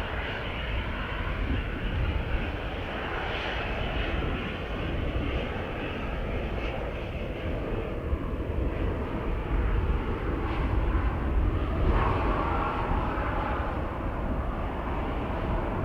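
Jet airliner engines heard from the ground: a steady rushing engine noise, a little louder for a few seconds about ten seconds in, over a low wind rumble on the microphone.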